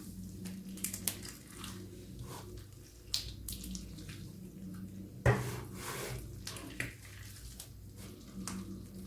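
Hands squeezing and kneading slime packed with gel beads, giving wet squishing with irregular crackles and pops. The sharpest pop comes about five seconds in. A steady low hum runs underneath.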